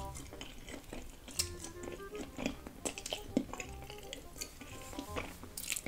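Background music with a light melody, playing under close-miked eating sounds: black bean noodles being slurped and chewed, with sharp clicks of chopsticks against the dish.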